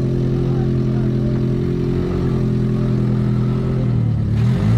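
A one-ton Geo Tracker's engine running steadily at low revs. About four seconds in, its pitch sags briefly and then comes back up.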